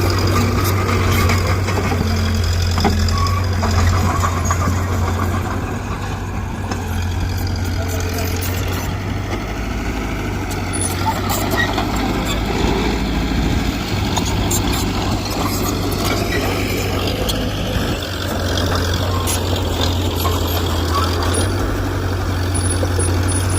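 Heavy diesel engine running steadily with a strong low hum that eases off twice and comes back, over scattered metallic clanks.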